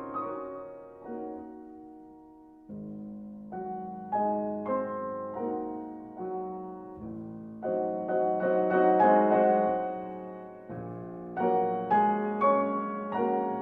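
Background piano music: chords and melody notes struck in short phrases, each note ringing and fading.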